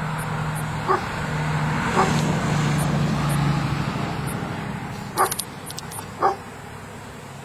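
Honey bee swarm buzzing steadily around a swarm trap as the bees move in; the hum eases off in the second half. Four short sharp sounds cut through it, the last two the loudest.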